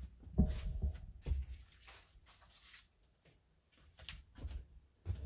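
Handling noises on a desk: a few soft knocks and clatters in the first second and a half, a quiet stretch, then a few lighter ticks near the end.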